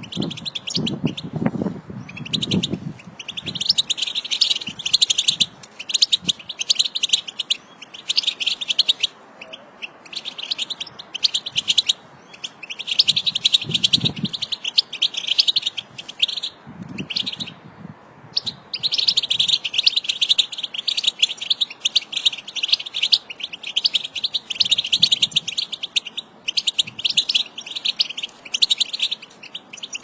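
A flock of European goldfinches twittering together: high, rapid chatter in runs of a few seconds, broken by short pauses, with a longer lull a little past halfway.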